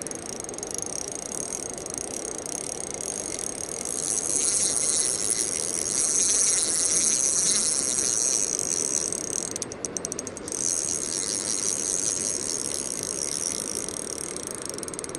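Spinning reel's drag clicking in a fast steady buzz as a hooked pike pulls line off against it. About ten seconds in it slows briefly to separate clicks, then runs on.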